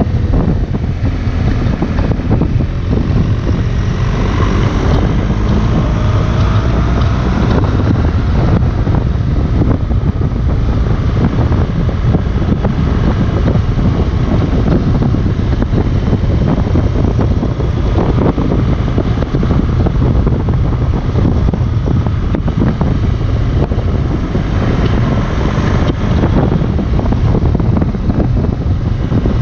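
Wind buffeting the microphone of a moving 2018 BMW R1200 GS, with the bike's boxer-twin engine note underneath. The engine pitch rises and falls, clearest in the first several seconds and again near the end.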